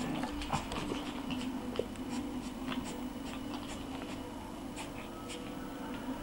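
Shih-Tzu puppies scuffling and pawing on blankets: scattered soft scratches and rustles from claws and fur on fabric, over a steady low hum.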